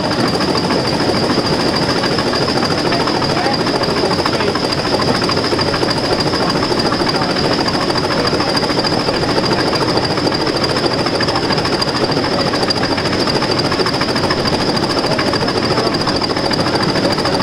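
Class 20 diesel locomotive's English Electric eight-cylinder engine running steadily under way, heard close by, with a steady high whistle above the engine noise and the train's running noise throughout.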